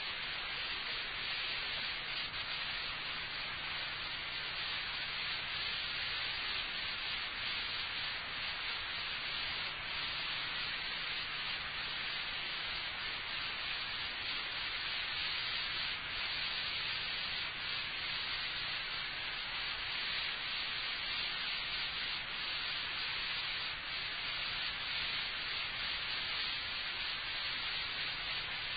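Steady hiss with a faint low hum: the background noise of an old analogue lecture recording.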